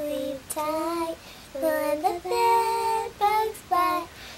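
Two young girls singing a goodnight song together in short phrases of held notes.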